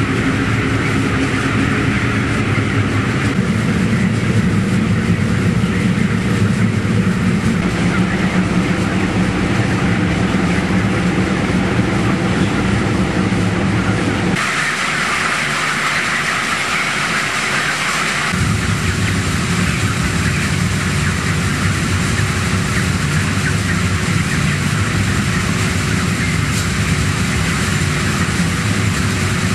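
Steady mechanical drone and low hum of a broiler house. About halfway through, the low hum drops out for a few seconds and a brighter hiss takes its place, then the hum returns.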